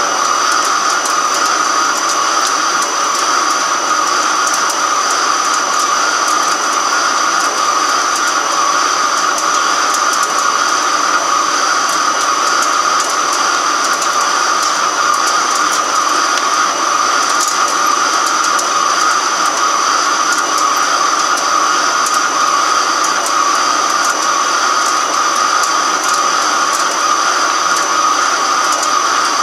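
Microcut BNC-6500 heavy-duty flat-bed lathe turning a large metal workpiece: a steady whirring machining noise with a thin high whine over it, unchanging throughout.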